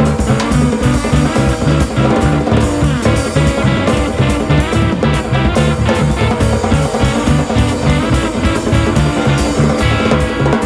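Instrumental jazz-rock fusion played live by a guitar, bass guitar and drum kit trio, with a steady pulsing bass line under busy drumming and guitar.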